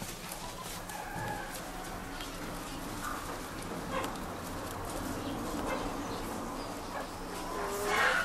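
Domestic chickens clucking and calling, with the loudest call near the end, over a low steady hum.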